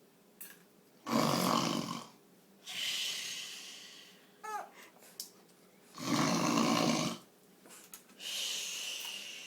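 A person snoring: two loud snoring breaths of about a second each, some five seconds apart, each followed by a softer, breathy exhale. A brief high squeak comes about halfway through.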